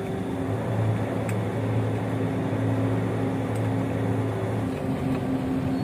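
A vehicle engine running at a steady idle, an even low hum, with a couple of faint clicks.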